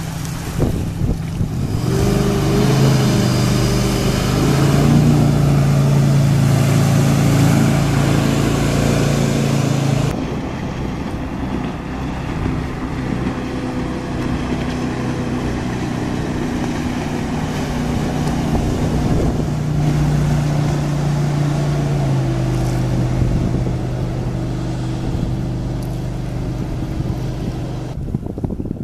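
Rebuilt Chevrolet 396 big-block V8 running steadily in a jet boat on its test run, a loud, even drone with a rush of water and wind over it. The rush drops away abruptly about ten seconds in, while the engine drone runs on with a slight drop in pitch later.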